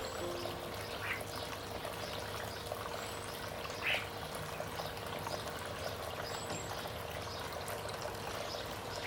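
Water steadily trickling and pouring, as from a garden fish-pond feature, with a few short, faint bird chirps over it.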